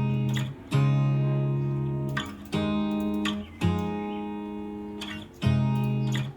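Acoustic guitar music: strummed chords, each struck sharply and left to ring, about one every second or so.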